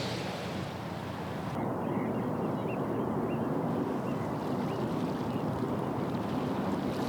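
Steady low rumble of a passing vessel's engine, mixed with water and wind noise; it grows a little louder about one and a half seconds in.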